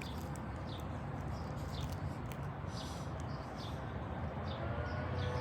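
Outdoor background with brief high, downward chirps from birds every second or so over a steady low hum. Near the end, faint steady tones of a distant siren begin to rise in.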